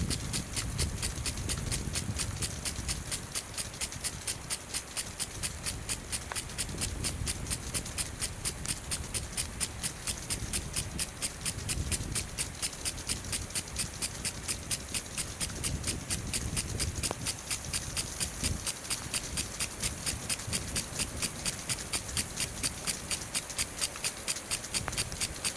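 Even, rhythmic clicking, about three clicks a second without a break, over a steady hiss.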